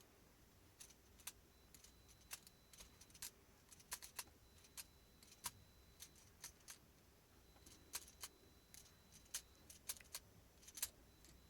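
A near-silent room with scattered faint clicks and small rattles. A faint, steady, high-pitched tone comes and goes, fitting a very quiet hearing-test tone played at the edge of audibility.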